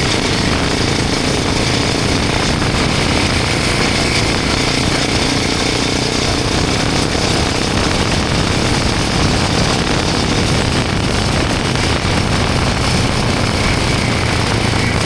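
Royal Enfield Himalayan 450's single-cylinder engine running through a Norifumi Long aftermarket exhaust with its dB killer fitted, heard while the motorcycle is ridden. The sound is loud and steady, without big revs.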